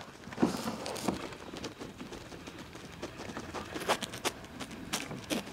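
A hooked bass being reeled in to a fishing kayak: scattered clicks and knocks from the reel and gear, a small cluster of them near the end, over faint water noise.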